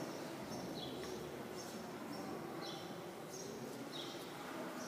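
A small bird chirping faintly and repeatedly, short high notes that slide downward about once a second, over the hum of a large hall.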